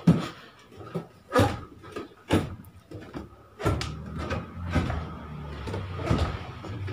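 Irregular knocks and thumps, roughly one a second, with a low hum coming in about halfway through.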